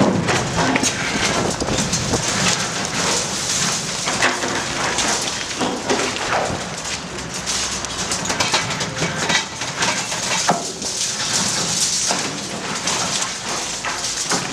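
Hydraulic demolition shear on a Cat 314D LCR excavator crushing and raking broken concrete and rebar from a bridge deck: a dense, continuous, irregular crackle and clatter of breaking concrete and shifting debris, with the excavator's engine running underneath.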